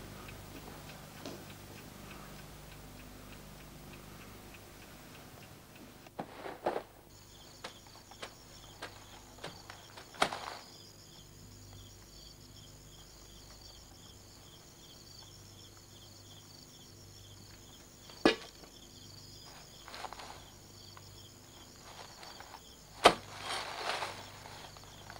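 Crickets chirping in a steady, pulsing night chorus that starts a few seconds in. A few sharp knocks are heard, and near the end comes the scrape of a shovel digging into garden soil.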